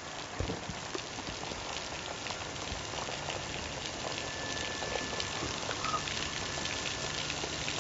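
Artificial rain from a film-set rain machine falling steadily on straw-covered ground.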